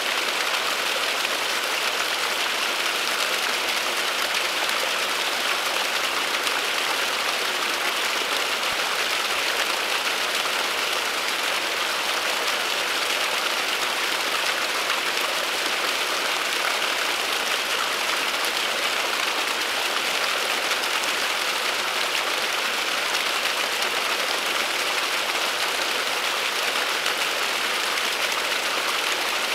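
Small waterfall splashing steadily: an even hiss of falling water that does not change.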